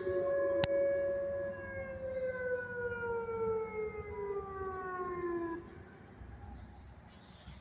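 Outdoor tornado warning sirens sounding during a siren test with no storm. Two siren tones glide slowly lower and fall away about five and a half seconds in. A single sharp click comes less than a second in.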